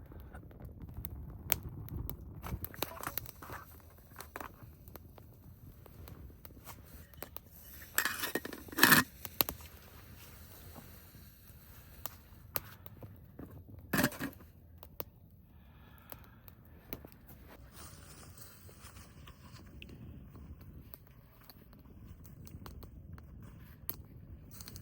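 Handling noises: scattered clicks, scrapes and rustles, with a louder clatter about eight to nine seconds in and a sharp knock about fourteen seconds in.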